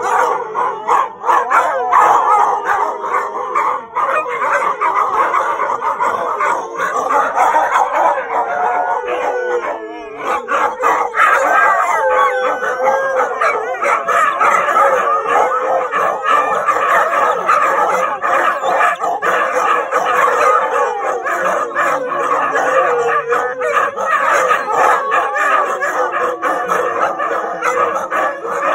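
Several huskies howling together in chorus, many overlapping howls rising and falling in pitch, with a brief lull about ten seconds in.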